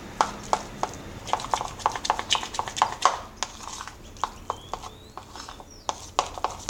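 Spoon stirring a thick cornstarch-and-shampoo slime mixture in a bowl, clicking and knocking against the bowl in an irregular run of about three or four strokes a second.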